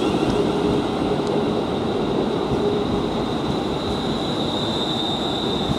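London Northwestern Railway Class 350 Desiro electric multiple unit pulling out of the platform, its cars rolling past with a steady rumble. A high steady whine runs over it and grows a little louder near the end, while a lower tone fades about halfway through.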